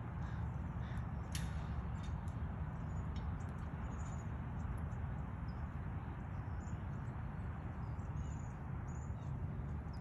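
Steady low rumble with faint, short high chirps of small birds now and then, a few more of them near the end.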